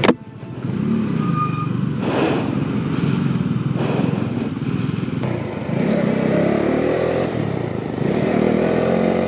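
Bajaj Dominar 400's single-cylinder engine running at low road speed, its revs rising and falling, with road noise around it.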